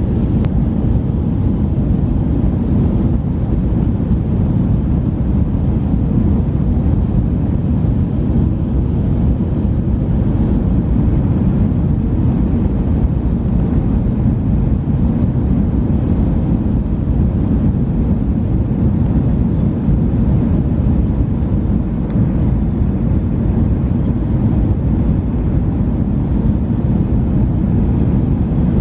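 Airbus A321 cabin noise on approach: a steady low rumble of the engines and rushing air, even in level throughout.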